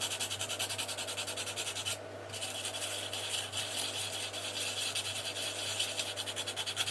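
Fast, even scraping of the horn's brass terminals, roughly nine strokes a second, cleaning them down to bare metal so they will take solder. It pauses briefly about two seconds in, then resumes.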